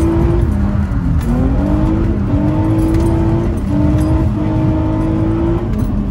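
Naturally aspirated VQ35DE 3.5-litre V6 of an Infiniti G35 coupe accelerating hard, with its intake and engine note heard inside the cabin. The note climbs in pitch under load, the revs dip and recover a couple of times, and they fall near the end for a gear change.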